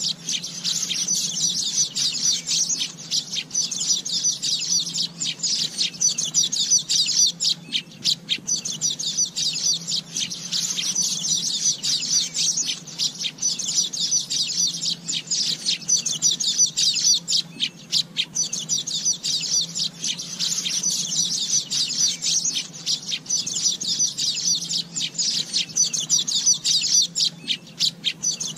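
Asian golden weaver song: a dense, fast, high-pitched chatter of short notes that runs almost without pause, thinning briefly twice, over a faint steady low hum.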